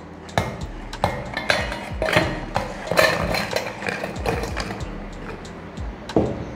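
Dry round biscuits tipped by hand from a bowl into an empty stainless-steel mixer-grinder jar: an irregular run of sharp clicks and clinks as they hit the metal and each other.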